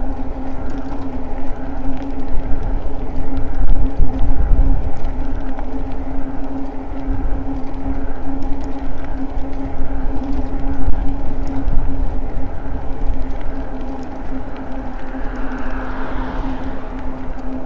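Electric motor of an Eahora Juliet e-bike whining steadily under way, with wind rumbling on the microphone and a faint pulse about twice a second from the turning wheels. A hiss swells near the end.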